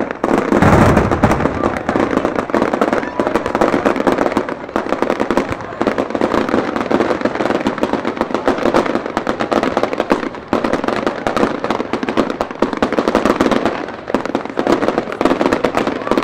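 Aerial fireworks display: a steady run of crackling and popping bursts, with a heavier, deeper boom about a second in.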